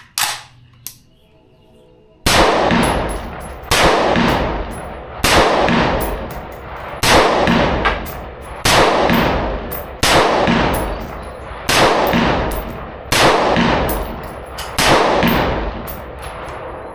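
Slow string of about nine shots from an AR-15-style gun firing 5.56 rounds, one every second and a half or so, each very loud with a long echoing ring-out. A couple of small clicks come before the first shot.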